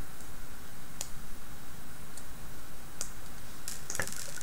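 Small plastic gearbox parts of a robot kit clicking and tapping as they are handled and fitted together by hand: a few separate clicks, then a quick run of clicks near the end, over a steady background hiss.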